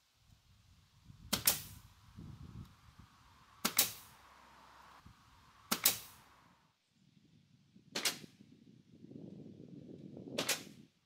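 Pneumatic nail gun firing five times, roughly two seconds apart, driving nails into a wooden stair railing, with quieter handling sounds between shots.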